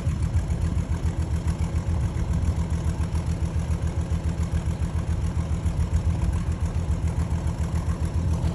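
Steady low engine rumble with a fast, even pulsing beat.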